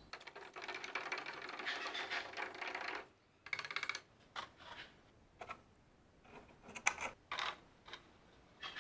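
Something poured into a plastic jug of water makes a dense crackling hiss for about three seconds. After that come short separate clicks and knocks as the axe head and a wire clip are handled in the jug, which is being set up as an electrolysis bath for rust removal.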